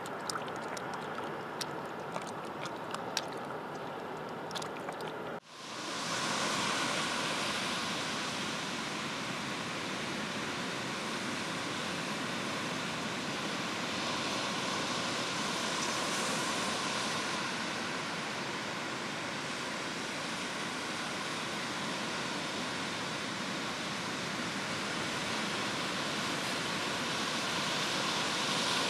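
Ocean surf breaking and washing up a sandy beach: a steady rushing noise that swells and eases gently, starting suddenly about five seconds in. Before it, a quieter hiss with scattered light clicks.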